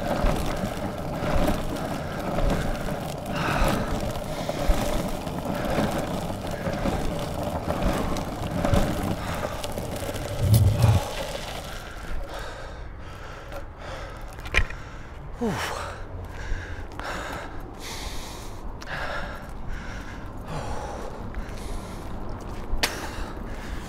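Longboard wheels rumbling over a rough gravel path as the rider kick-pushes, with a dull thump about halfway. Then the rolling stops and heavy panting breaths come about once a second, with footsteps, as he walks.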